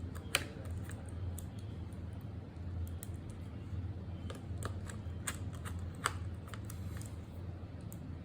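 Scattered light clicks and taps on a laptop, like keys or plastic parts being pressed, over a steady low hum. There are two sharper clicks, one right at the start and one about six seconds in.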